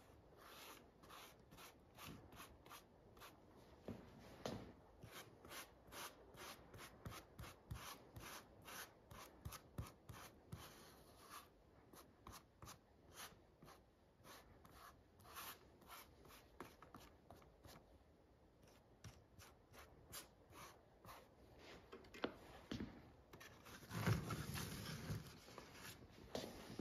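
Contact adhesive being spread onto leather with an applicator: faint, quick rubbing strokes about three a second, thinning out midway, with a louder, longer rub near the end.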